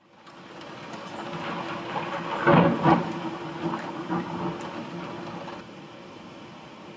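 Heavy rain and gusting wind in a thunderstorm, fading in and swelling to its loudest about two and a half to three seconds in, then easing off.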